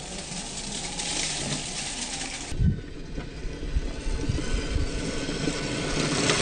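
Outdoor background hiss, then a sudden change about two and a half seconds in to a 1/10-scale RC crawler driving over loose gravel, its tyres crunching on the stones with scattered low knocks.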